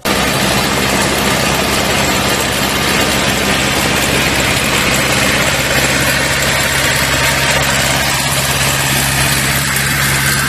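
An engine running steadily at idle, with a loud, even rushing hiss over its low hum.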